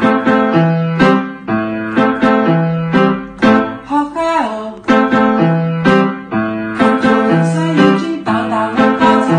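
Music: a melody of struck notes, about two a second, over a bass line.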